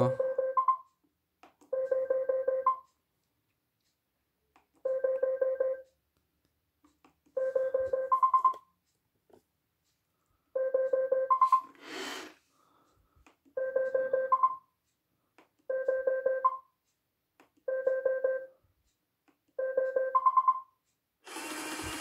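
iRobot Roomba 620 in its built-in test mode, its speaker playing a quick run of electronic beeps nine times, every two to three seconds, each time the Spot button is pressed to step to the next test, with a short noise about halfway through. Near the end the side-brush motor starts up and runs.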